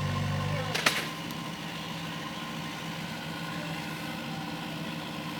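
Mini excavator's diesel engine running steadily, with a sharp click about a second in, after which the hum is slightly quieter.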